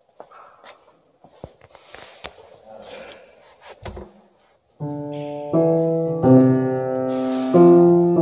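Scattered knocks and rustles, then from about five seconds in an Estey upright piano plays held chords, each ringing on until the next is struck, changing three or four times.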